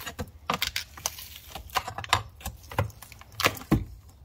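Irregular, rapid clicks and snaps as a hand tool pries at an e-bike lithium battery pack, working the taped, shrink-wrapped cells loose from their backing plate.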